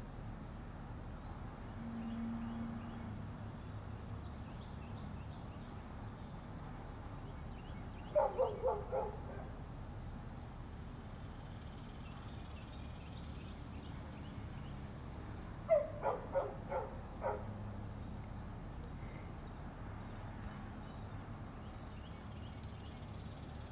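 A dog barking in two short runs of four or five quick yips, about seven seconds apart. Under it is a steady high buzz of insects that fades about a third of the way in.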